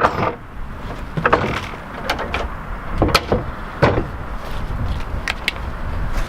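A newly built wooden tool cabinet and its door being handled: a string of about eight separate sharp knocks and clinks, with a steady low rumble underneath.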